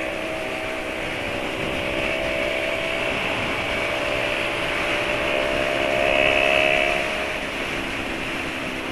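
Motor scooter engine running at a steady cruising speed, with wind and road noise. It gets a little louder about six seconds in, then its tone drops slightly.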